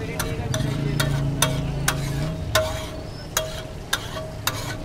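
Metal spatula striking and scraping a large steel tawa as chicken liver is dry-fried on it. It gives about ten sharp clangs at uneven intervals of roughly half a second, each ringing briefly, over the sizzle of the frying. A low steady hum sits underneath for the first couple of seconds.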